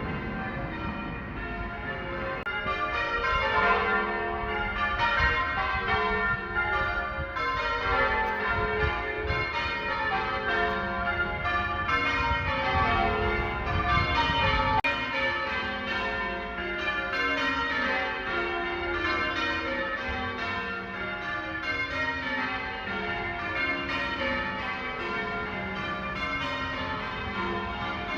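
Church tower bells being change-rung: a ring of bells struck one after another in repeated falling sequences, each note ringing on into the next.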